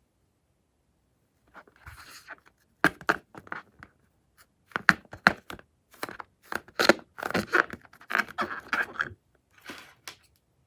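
Crunchy slime-making materials being handled close up: irregular clusters of sharp crackles, taps and short scrapes, starting about a second and a half in.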